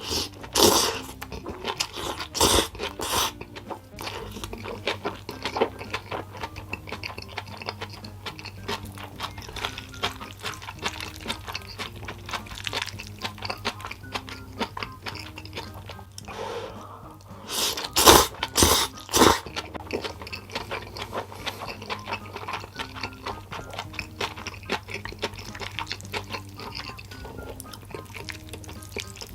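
Close-miked chewing of sauce yakisoba, with two clusters of louder eating sounds, one near the start and one about two-thirds of the way through, over soft background music.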